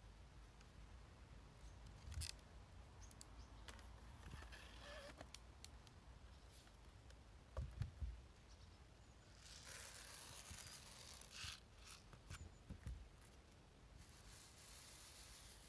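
Quiet handling sounds of a plywood seeder frame and clear acrylic seed plates: scattered knocks and clicks as they are moved and set down on a table. The loudest is a quick cluster of knocks about eight seconds in, and a stretch of soft rustling follows for a couple of seconds.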